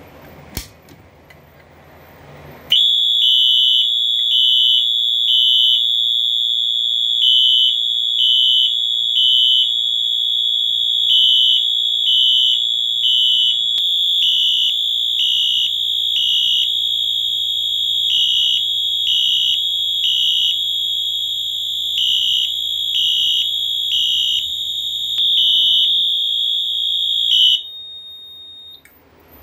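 A fire alarm system goes into alarm from a manual pull station. A single click comes first. About two seconds later the electronic alarm sounders start: a loud, high steady tone with louder beeps on top in groups of three, repeating about every four seconds. It cuts off suddenly near the end.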